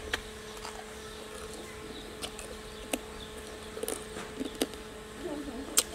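Scattered sharp cracks and crunches of cooked dung beetles' hard shells being broken apart by hand and chewed, the loudest crack near the end, over a steady faint hum.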